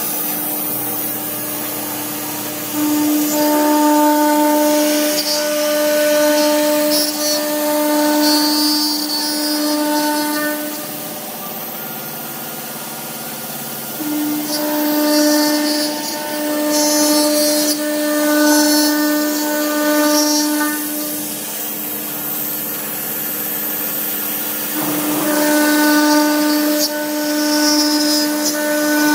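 CNC router spindle with an end mill cutting a pocket into a 12 mm aluminium plate: a steady high whine with a rasping cutting noise that varies as the tool moves through the metal. The whine and cutting noise ease off for a few seconds around the middle, then come back.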